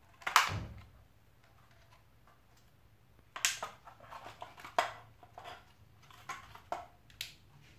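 Plastic housing of a car power-window master switch snapping loudly once as it is pried apart. Then a string of lighter plastic clicks and knocks as the parts are handled.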